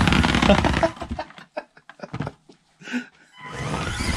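Micro RC crawler's electric motor and gear drivetrain running under load as its saw-blade front wheels claw up a steep carpeted board, cutting off about a second in. A few scattered knocks and clatters follow, and the drivetrain noise builds again near the end.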